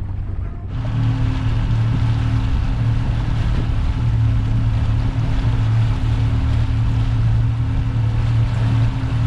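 Twin 150 hp Yamaha outboard motors running steadily with the boat under way, a low hum over a rush of wind and water. The sound comes in abruptly under a second in.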